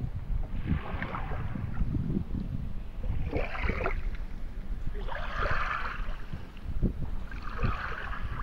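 River water sloshing and lapping against a moored boat's hull in four swells about two seconds apart, over a steady rumble of wind on the microphone.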